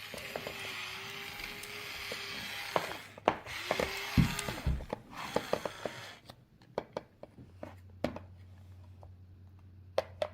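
Small digging tools scraping and tapping in kinetic sand, with scattered sharp clicks of tool on sand and plastic. A steady whirring hiss runs through the first half and stops about six seconds in, leaving only the sparse taps.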